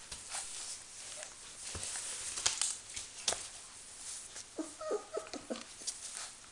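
Five-week-old Border Collie puppy playing on newspaper: paper rustling and crinkling with scattered clicks as it mouths a wool sock, and a short, broken run of small puppy vocal sounds about two-thirds of the way through.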